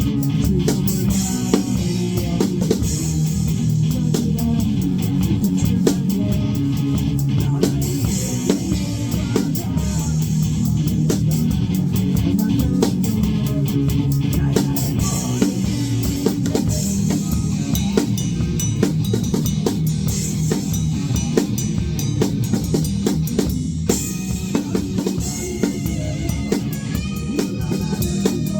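Band music without vocals: a drum kit with bass drum and snare keeping a steady beat under guitar and bass. A few held higher notes come in near the end.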